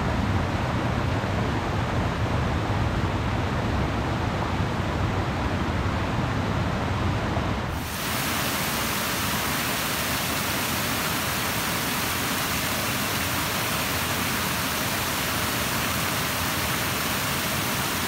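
Steady rushing of flowing river water, with a low rumble under it for the first eight seconds. About eight seconds in, the sound switches abruptly to a brighter, even hiss.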